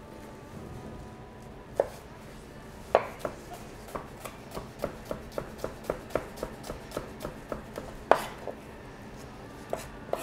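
Chef's knife finely chopping red onion on a plastic cutting board. A couple of separate knocks come first, then a quick even run of taps about four a second, with a louder knock about eight seconds in and a few scattered taps after it.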